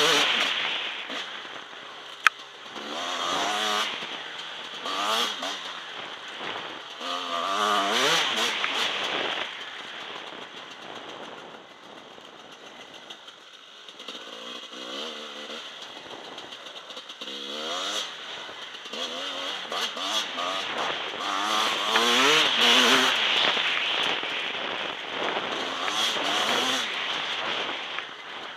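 2009 Husqvarna WR300 two-stroke enduro motorcycle engine under way, revving up and falling back again and again through gear changes on a dirt trail. It is quieter for a few seconds in the middle. There is a single sharp click a little over two seconds in.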